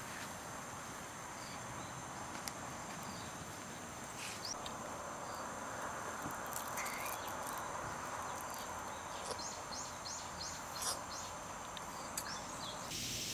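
Steady high-pitched drone of summer insects. About nine to ten seconds in comes a quick run of five or so rising chirps, and there are a few faint knocks.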